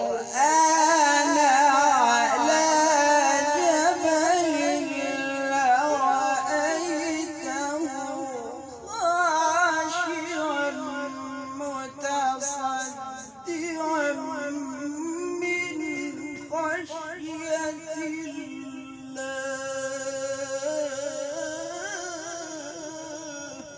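A man's melodic Quran recitation (tajweed): long, ornamented phrases with the pitch wavering up and down, broken by short pauses for breath about 9 and 13.5 seconds in.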